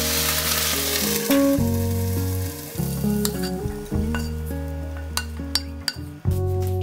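Water poured into a hot stainless steel pan of stir-fried eggplant sizzles loudly, the hiss dying away over the first two or three seconds. Later come a few light clicks as the cooked eggplant is tipped from the pan onto a plate, over background guitar music.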